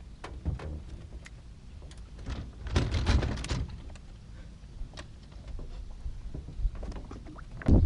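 Scattered light clicks and knocks with a scraping rattle about three seconds in, handling noise of gear and a landed bass in an aluminum jon boat, over a low rumble.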